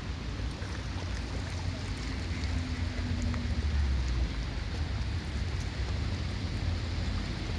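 Wind buffeting the microphone in low gusts, strongest a little past the middle, over a steady wash of small lake waves lapping against the rocks of the shore.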